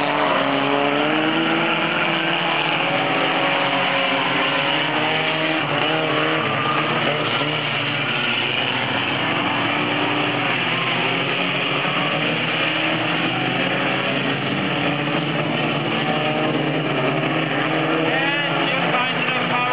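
Pony Stock race cars' four-cylinder engines running together on the track, their pitches overlapping and rising and falling as the cars accelerate and lift. Near the end one engine sweeps up and down in pitch as a car passes close.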